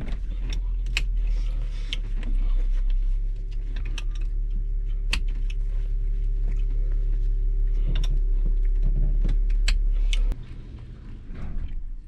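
Turbocharged Honda hatchback engine idling through a straight-piped 2.5-inch downpipe exhaust, with keys jangling and small clicks over it; the engine shuts off about ten seconds in.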